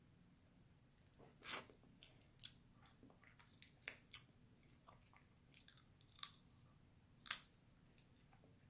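Crab leg shells cracking and snapping as they are pulled apart by hand, a scatter of sharp crackles with the sharpest about a second and a half, six and seven seconds in, and soft chewing between them.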